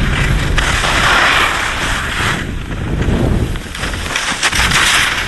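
Wind buffeting the microphone during a ski run, with the rushing hiss of skis sliding over snow that swells and fades two or three times.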